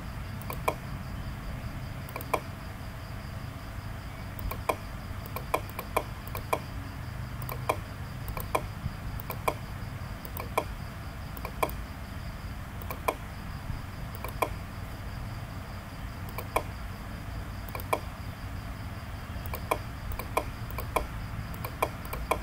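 Computer mouse clicking at irregular intervals, single clicks and quick double clicks, over a steady low background hum.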